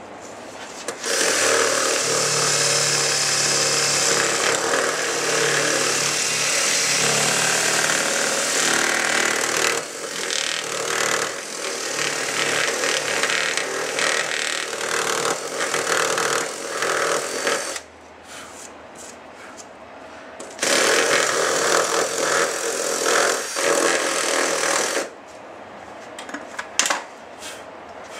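Cordless drill running under load, boring a 3/8-inch hole through a jet ski's hull in long runs. It pauses about 18 seconds in, runs again briefly, then stops, leaving a few light knocks.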